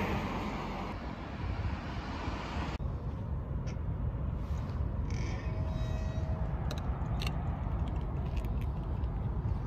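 Wind rumbling on the microphone while riding a bicycle, a steady low noise. A brief faint thin tone comes about halfway through, and a few light clicks near the end.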